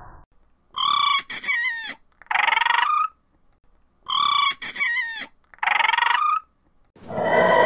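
Dinosaur call sound effect for an animated triceratops: a bird-like, crowing two-part cry, played twice in identical form, then a deeper, broader roar beginning near the end.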